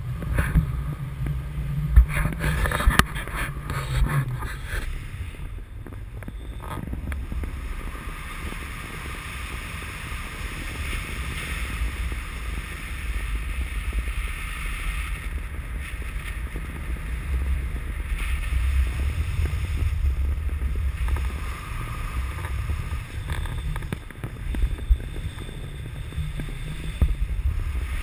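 Wind buffeting the action camera's microphone during a paraglider flight: a steady, gusting low rumble with a faint hiss above it. A few short sharp knocks stand out about two to four seconds in and again near the end.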